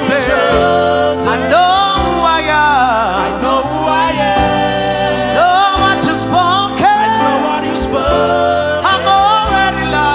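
Gospel worship music: a solo voice singing sliding, drawn-out melodic lines over held instrumental chords.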